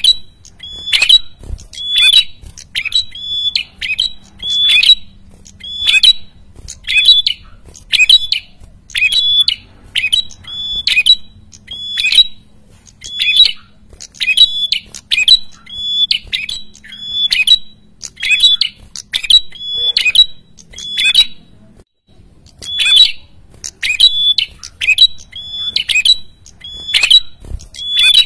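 A caged prenjak kepala merah (a rufous-headed tailorbird-type songbird) calls over and over in a harsh, noisy chattering. Short sharp calls come about once a second, with a brief pause about three-quarters of the way through.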